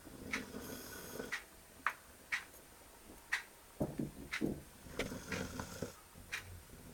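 A large dog snoring in its sleep: rough snores near the start and again about four and five seconds in. A sharp tick about once a second runs under it.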